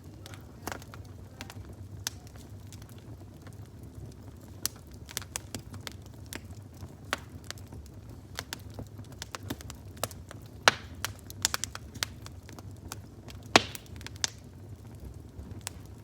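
Fire crackling, with irregular sharp pops and snaps, a few of them much louder than the rest, over a low steady rumble.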